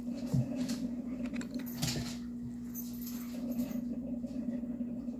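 A few soft taps and clicks of a plastic squeeze bottle and a paintbrush against a paint palette, over a steady low hum.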